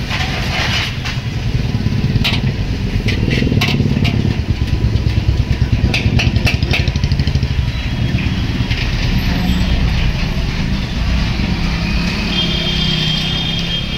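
Metal spatula clanking and scraping against a large iron wok while stir-frying noodles, in scattered strikes, over a steady low rumble.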